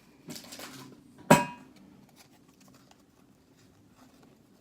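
Trading cards being handled: a short rustle of cards sliding, then a single sharp tap with a brief ring about a second in.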